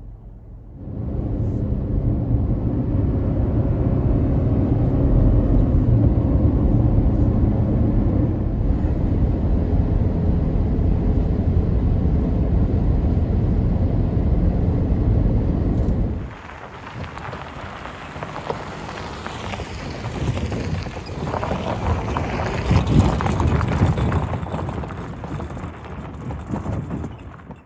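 Steady low road and engine rumble of a moving vehicle heard from inside. About halfway through it cuts off abruptly and gives way to a quieter, more varied sound.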